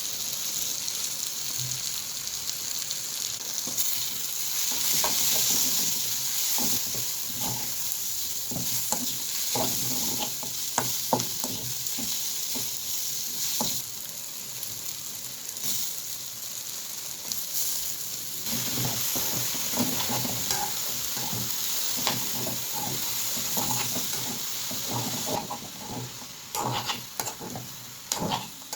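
Brinjal and potato pieces sizzling as they fry in oil in a pan, stirred with a spatula in short, irregular scraping strokes. About 25 seconds in the sizzle dies down and the stirring strokes stand out more.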